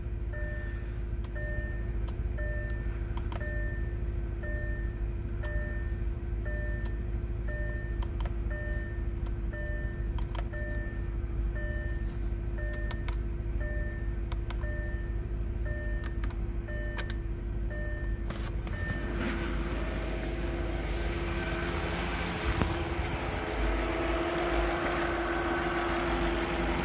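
Audi A6's 4.2-litre V8 idling steadily, first heard from inside the cabin with a short warning chime repeating about once a second. About two-thirds of the way through the chime stops and the engine sound becomes louder and fuller, heard at the open engine bay.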